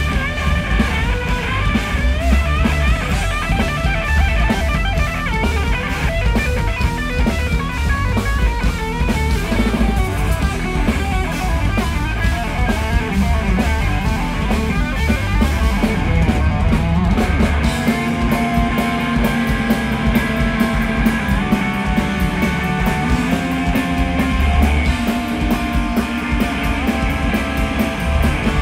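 Live rock power trio of electric guitar, electric bass and drum kit playing an instrumental passage with no singing. Quick runs of notes fill the first half, and held notes follow over the steady drums.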